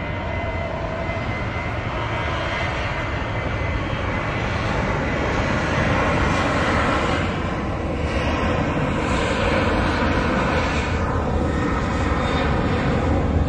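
Boeing 737 jet engines under takeoff thrust as the airliner rolls down the runway: a steady jet noise that slowly grows louder.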